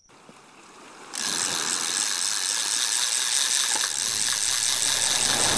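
Fishing reel's ratchet buzzing steadily as line is pulled off under a heavy load, starting abruptly about a second in.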